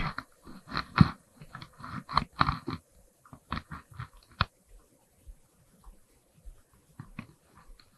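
Close, irregular crunchy clicks and knocks, like gear being handled near the microphone, dense for the first few seconds and then thinning out to scattered taps.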